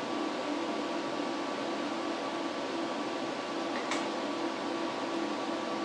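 Steady fan-like mechanical hum with a constant drone, and one faint click about four seconds in.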